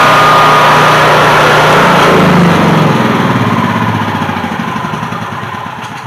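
Honda EB5000 generator's single-cylinder engine running steadily, its sound falling away steadily over the second half. It runs normally but puts out no voltage, because the alternator has lost its residual magnetism.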